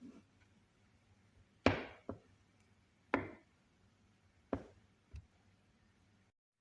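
Hard knocks in the kitchen, like a utensil striking a pot or bowl. Three louder knocks come about a second and a half apart, and two of them are followed by a lighter knock.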